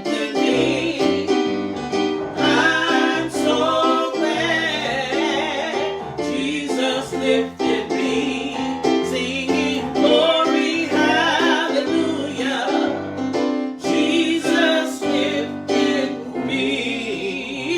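A woman singing a gospel worship song with a wavering vibrato, accompanied by piano or keyboard.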